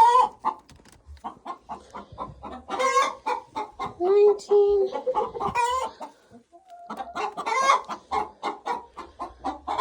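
Hens clucking in quick runs of short, pitched clucks, with a brief lull a little past the middle.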